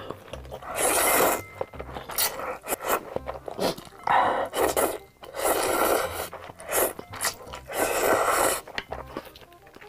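Close-miked slurping of noodles from a spicy red broth: about four long, loud slurps, with smaller mouth and chewing sounds between them.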